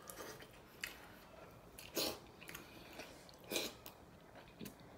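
Faint chewing and wet mouth clicks of a man eating braised pork hock, a few separate smacks about a second apart.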